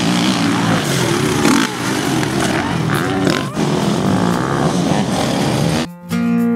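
Motocross bike engines revving, their pitch rising and falling as the bikes ride. Near the end the sound drops out and strummed guitar music starts.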